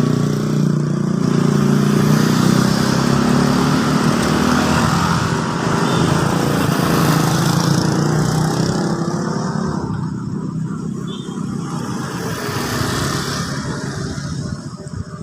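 An engine running steadily with outdoor noise; its low hum thins out after about nine seconds.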